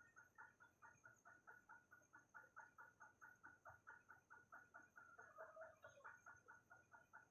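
Faint, regular series of short animal calls, about four or five a second, with a thin steady high tone underneath.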